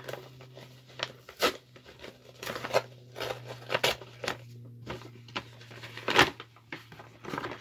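A flat paper mailer torn open and crinkled by hand: a run of irregular rips and paper crackles, the sharpest about a second and a half, four and six seconds in, over a steady low hum.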